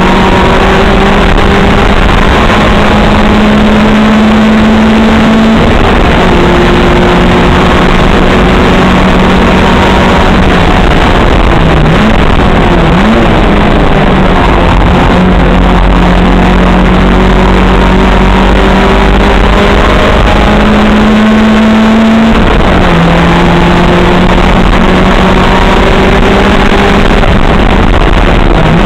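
Opel Kadett race car's engine at racing revs, loud, heard from inside the car. The pitch climbs slowly through each gear and drops sharply at the shifts about six and twenty-two seconds in, with a brief dip and recovery near twelve seconds.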